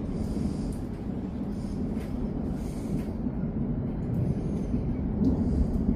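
Thunder from a thunderstorm rolling on continuously as a steady low rumble.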